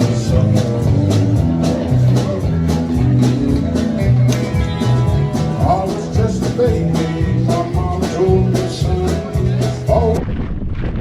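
Country-rock song with electric guitar, a steady drum beat and a singing voice. It cuts off abruptly about ten seconds in, giving way to wind rushing on the microphone.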